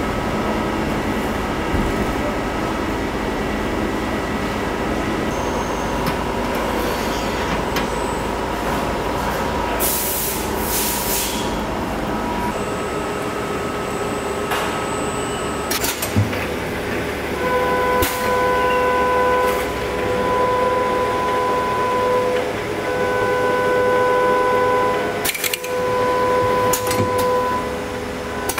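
Automatic piston bottle-filling line running: steady machine hum with scattered clicks and a couple of short hisses. From about two-thirds through, a steady whine switches on and off every couple of seconds.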